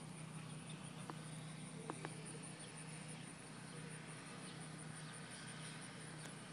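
Faint insects chirping steadily in a continuous high, finely pulsing trill over a low steady hum. A few light clicks come about one and two seconds in.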